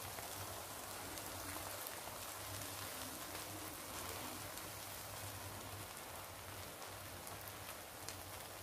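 Beaten eggs frying in a little oil in a nonstick pan, giving a quiet, steady sizzling hiss, with a faint low hum underneath.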